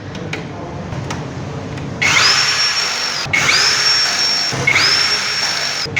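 Power drill running in short bursts of about a second each, starting about two seconds in: three runs and the start of a fourth, each spinning up to a steady high whine.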